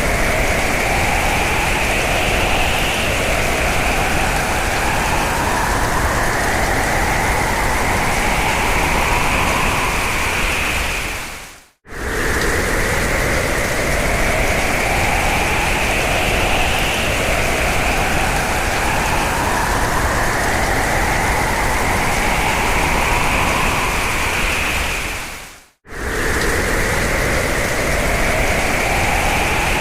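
Strong hurricane wind running loud, with howling gusts that whistle and rise in pitch over the course of several seconds. The sound is a loop: twice it fades out to silence and snaps straight back, and the gusts repeat the same pattern each time.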